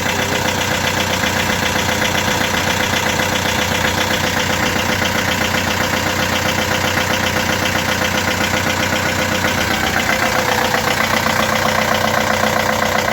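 Ford Transit van's engine running steadily; it cuts off abruptly at the end.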